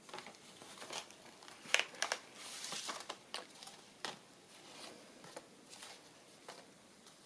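Paper and card rustling and scraping as small journal cards are slid into a paper pocket, with light taps and a longer rustle about two and a half seconds in.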